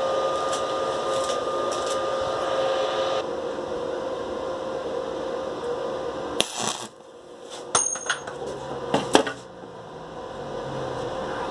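A small motor running with a steady whine and hiss that drops back about three seconds in and dies away a little past halfway, followed by a few sharp clicks and knocks.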